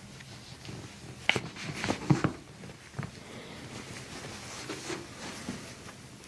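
Toe joints cracking under a chiropractor's hands: a sharp pop about a second in, a quick cluster of pops a moment later, and one more a second after that.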